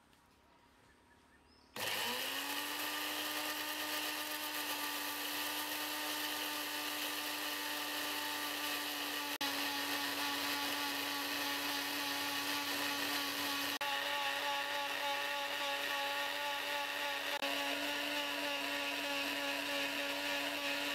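Electric countertop blender switched on about two seconds in, its motor spinning up quickly and then running with a steady whine as it blends raw eggs with lemon juice, vinegar and a little oil, the first stage of making mayonnaise.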